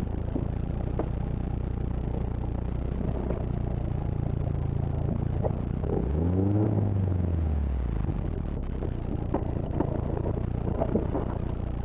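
4x4 engine running at a low-speed crawl with a steady low drone; about six seconds in it revs up and eases back down over roughly two seconds. Light clatter and knocks come from the vehicle working over rough ground.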